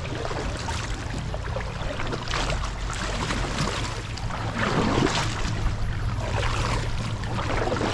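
Kayak paddle strokes swishing and splashing in river water, a stroke about every second and a half, over a steady low rumble of wind on the camera microphone.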